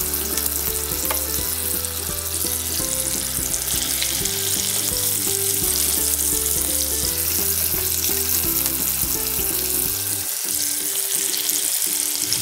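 Floured, prosciutto-wrapped chicken cutlets sizzling steadily in hot olive oil in a cast-iron skillet as they fry. Background music plays underneath.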